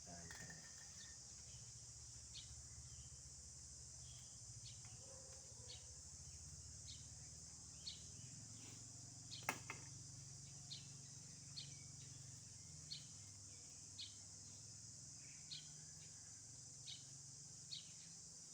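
Faint outdoor ambience: a steady high insect drone, with a short high chirp repeating about once a second and a single sharp click about halfway through.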